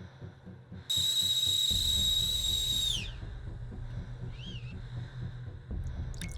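Stovetop kettle whistling: one loud, steady, high whistle for about two seconds that then slides down in pitch and dies away, followed by a brief faint chirp. A low drone runs underneath.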